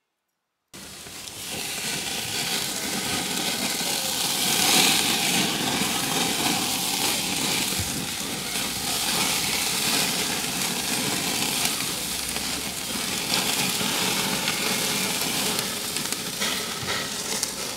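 Marinated chicken sizzling on a barbecue grill: a steady, dense hiss that cuts in suddenly just under a second in and eases off near the end.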